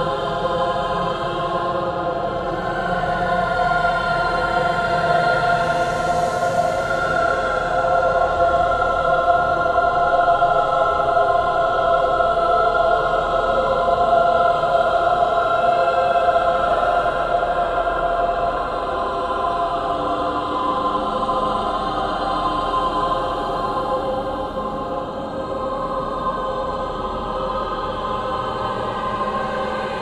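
Haunting choir singing long held notes without words, several voices in a sustained chord that swells a little in the middle and eases off again.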